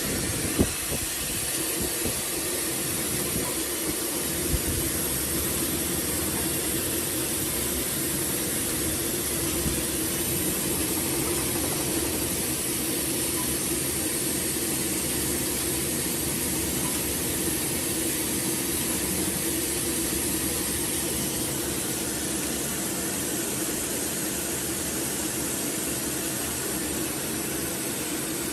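WATPRO WAT 8-8-3 washer-filler-capper bottling machine running: a steady mechanical hum with a constant hiss, and a few sharp clacks in the first few seconds.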